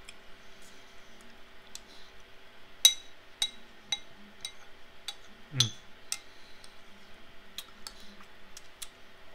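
A metal spoon clicking and scraping in a bowl while ice cream is eaten, with wet mouth smacks in between. The clicks are scattered and irregular, the sharpest about three seconds in. A little past halfway a louder click comes with a short falling low sound.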